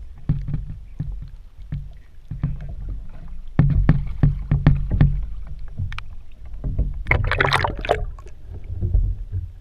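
Water slapping and sloshing against a small RC camera boat's GoPro waterproof housing, heard muffled through the case as a low rumble with many short knocks. About seven seconds in comes a louder, hissing splash as the camera dips under the surface.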